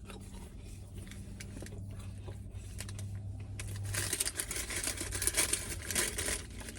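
Paper fast-food packaging rustling and crinkling as it is handled, most intense in the second half, over a low steady hum that fades out about two-thirds of the way in.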